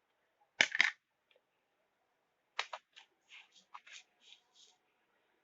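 Short crisp clicks and scrapes of kitchen utensils being handled: two sharp clicks about half a second in, then a quick run of taps and scrapes a couple of seconds later.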